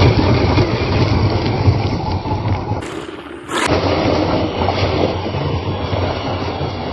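A 1/10 scale 4WD RC car driving over rough ground: a steady, noisy rumble of motor and tyres, broken by a short quieter stretch about three seconds in.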